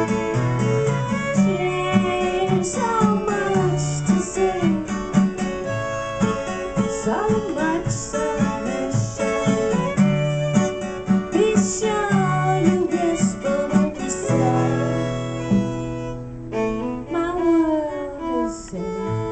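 Acoustic guitar strumming with a fiddle playing a sliding melody over it. About two-thirds of the way through, the strumming stops on a held, ringing chord while the fiddle plays on, gliding downward near the end.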